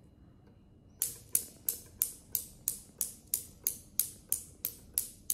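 Newton's cradle: its end steel ball is released about a second in, and the polished steel balls then clack against each other in a steady train of sharp metallic clicks, about three a second.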